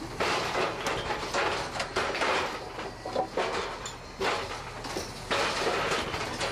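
Harsco Rail NTC new track construction machine working, its tie placement mechanism clunking about once a second as concrete ties are dropped onto the roadbed.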